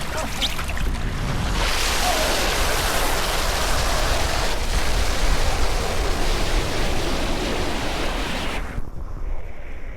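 Water rushing and hissing around a rider sliding down a waterslide, heard close on the rider's camera. The hiss cuts off abruptly near the end.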